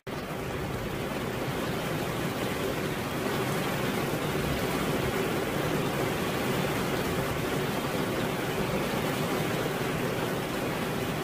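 Steady rain falling, a dense even hiss that swells a little over the first few seconds and then holds steady.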